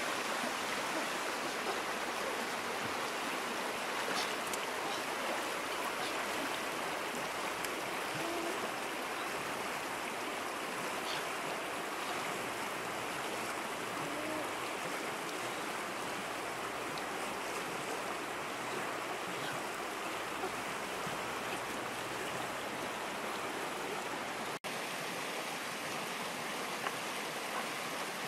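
Fast-flowing river rapids rushing over rocks: a steady noise of running water, with a brief dropout near the end.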